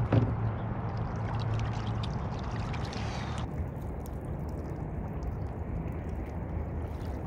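Small waves washing at a pebbly river shore: a steady low rush of water, with a knock right at the start. About halfway through, the higher part of the rush drops away suddenly.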